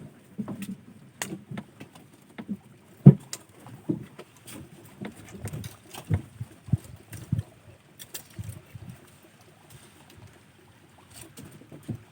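Water splashing and knocking against a small boat, with irregular low thumps and scattered clicks; one sharp knock about three seconds in.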